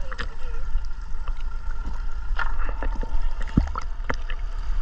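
Sea water sloshing and lapping against a handheld action camera at the surface, with a steady low rumble of water and wind on the microphone and scattered short splashes, the loudest a little past the middle.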